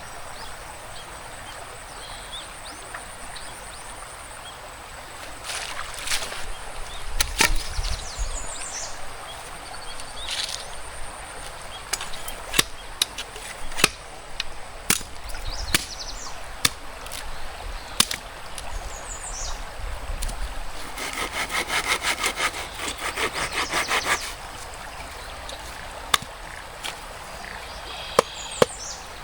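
Bamboo being cut and handled: scattered hard wooden knocks and clacks, then a few seconds of quick saw strokes about three-quarters of the way through. A stream runs steadily underneath.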